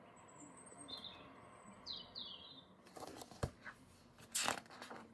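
Faint small-bird chirps, a few short calls, some sweeping down in pitch, in the first half. Later come a few soft rustles and knocks as a hardback picture book is handled and put down.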